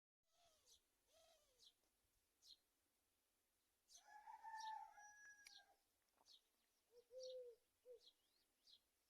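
A rooster crowing once, lasting about two seconds, starting about four seconds in, with small birds chirping throughout and a dove cooing twice near the end; all faint.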